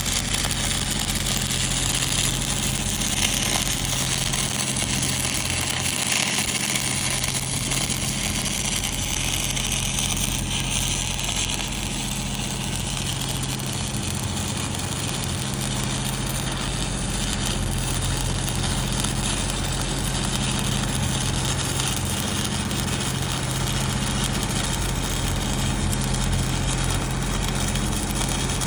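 Stick-welding arc crackling and hissing steadily as an E7010 cellulose electrode lays the capping pass on a 3-inch pipe flange joint, over a steady low machine hum.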